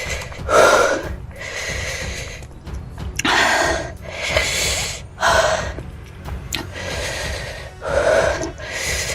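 A person breathing hard in sharp, breathy gasps and huffs, about one a second, typical of someone whose mouth is burning after eating an extremely hot chili chip.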